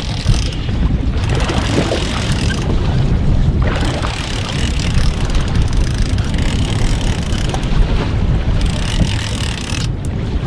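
Wind buffeting the microphone aboard a boat at sea, a steady low rumble with a hiss of wind and water that swells and drops every few seconds.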